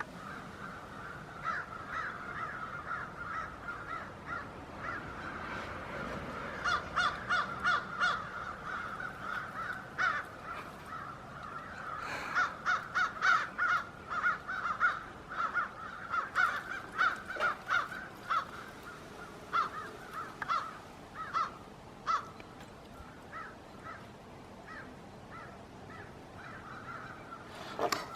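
A flock of crows cawing, many short calls overlapping, thickest in the middle stretch and thinning out toward the end.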